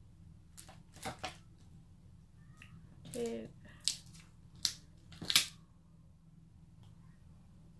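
Small sharp clicks and taps as fingers pick tiny self-adhesive gems off a plastic backing sheet, about five in all, the loudest near the end, with a brief murmur of a voice about three seconds in.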